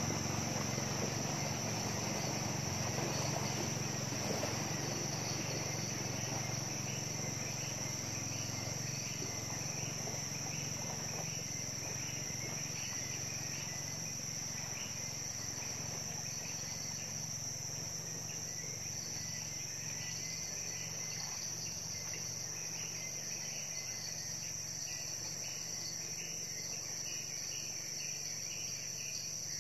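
Forest insects chirring: a constant high-pitched drone, with a second, pulsing insect call joining in for a stretch in the middle. A passing boat's motor fades away over the first several seconds.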